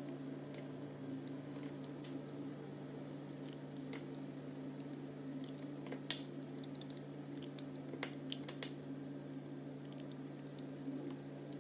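Bar of soap being sliced with a crinkle-cut blade: scattered crisp crackles and clicks as the blade cuts through, the sharpest about six seconds in and a quick run of them near eight seconds, over a steady low hum.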